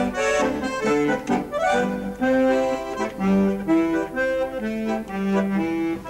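Bandoneon playing a tune: held melody notes over chords.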